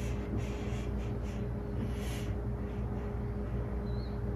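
Low steady hum with a faint steady tone above it and soft rustling, with a few short high chirps near the end.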